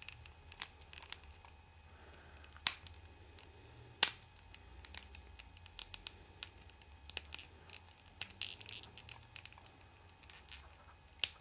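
Small hard-plastic toy parts clicking and rubbing as they are handled and pushed together: a figure's plastic key-and-gun accessory being worked into its hand. Scattered light ticks, with sharp clicks about three seconds in, again a second later and near the end, and a brief scrape in between.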